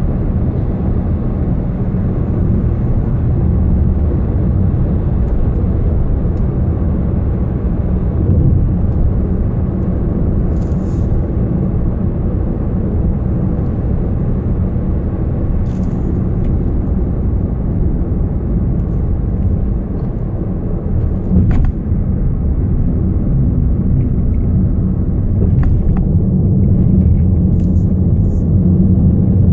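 Volkswagen Jetta TDI driving, heard from inside the cabin: a steady, loud low rumble of the moving car, with a few brief faint clicks. The owner describes a constant wobbling rumble on the road as the first sign of a still-undiagnosed fault.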